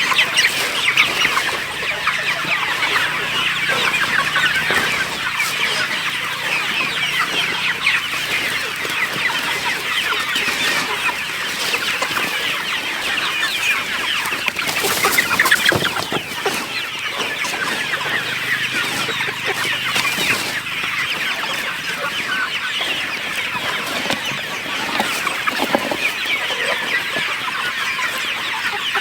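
A flock of chickens clucking and chattering continuously, many birds calling over one another.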